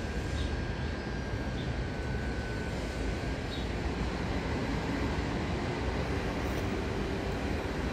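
Railway station ambience: a steady low rumble, with a faint high whine that fades out about three seconds in.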